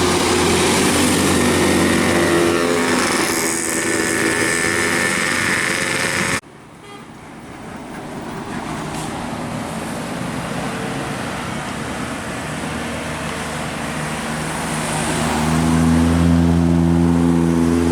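Large tour buses passing close by with their engines running loud. About six seconds in the sound cuts off abruptly to a quieter stretch, then another bus approaches and grows loud near the end.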